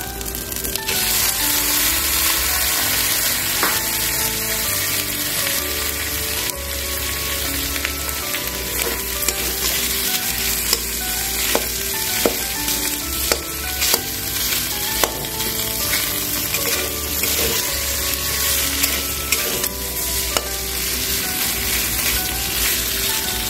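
Boiled potato, beetroot and carrot pieces sizzling in hot oil in a metal karahi, with a metal spatula scraping and clicking against the pan as they are stirred through fried spices and ginger paste. The vegetables are being sautéed in the spice mix.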